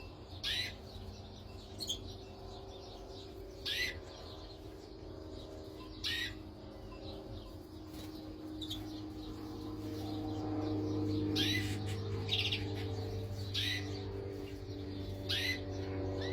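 Canaries giving short single chirp calls, one every one to three seconds, over a steady low hum.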